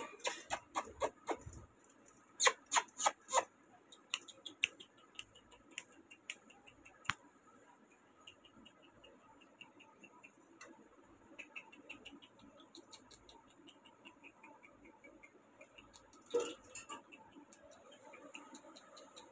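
A beagle puppy's claws clicking and tapping on the plastic floor of its wire cage as it scrambles about. The clicks come in quick clusters near the start, thin out to light scattered ticks, and there is one louder knock about sixteen seconds in.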